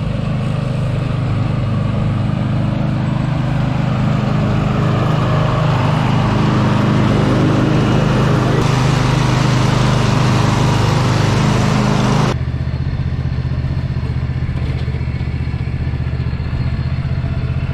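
An engine running steadily. About twelve seconds in the sound changes suddenly: the hiss falls away and a lower, steady hum carries on.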